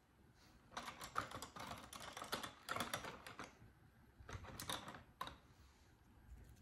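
Quick runs of light clicks and rustles as small plastic Christmas decorations are handled and picked over on a tabletop, in two spells, the second shorter, about a second after the first stops.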